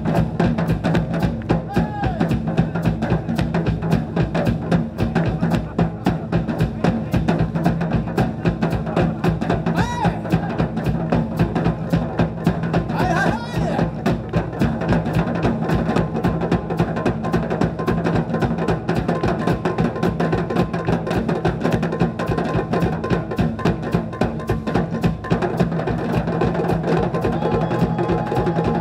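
Japanese taiko drums played by an ensemble in a fast, dense rhythm, the strikes running on without pause over a steady low tone.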